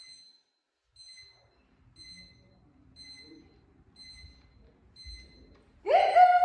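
Kitchen timer beeping, short high-pitched beeps about once a second: a kitchen timer going off. Near the end a loud, held pitched call comes in over it.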